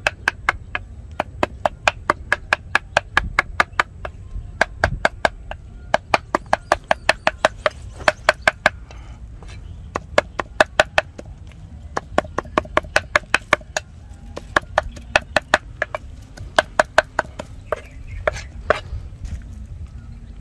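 Meat cleaver chopping rapidly on a round wooden chopping block, mincing a soft grey mash: runs of sharp strikes at about five a second, broken by short pauses.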